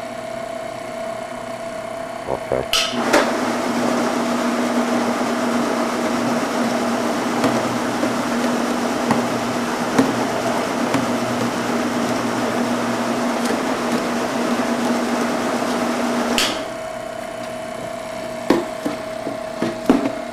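Conveyor and side-belt bottle orientator running, a steady motor hum with plastic oil bottles rattling along the belts. A second, lower motor hum starts with a few knocks about two and a half seconds in and stops about sixteen seconds in, leaving the first hum and scattered light knocks.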